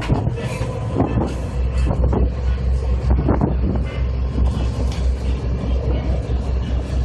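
A motor boat's engine running under way: a steady low, slightly pulsing rumble that grows stronger about a second and a half in. Over it is a dense rush of wind and water noise.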